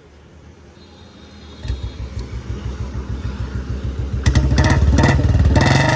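Royal Enfield Bullet 350 single-cylinder engine with an aftermarket silencer firing up about a second and a half in and idling with an even low thump, then revved harder and louder from about four seconds in.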